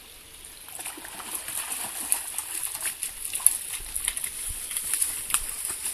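A dog splashing through shallow river water, wading toward the bank: irregular splashes that start about a second in and keep coming.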